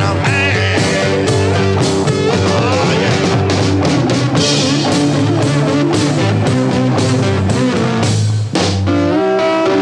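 Rock music with guitar and drums, with a brief break near the end.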